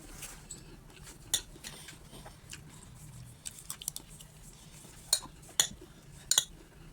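Cutlery clinking and scraping against a plate while eating, with a sharp clink about a second in and three more near the end.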